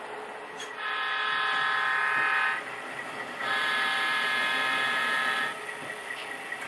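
Sound decoder in an HO-scale Santa Fe diesel model locomotive blowing its horn in two long blasts of about two seconds each, over the steady hum of its simulated diesel engine.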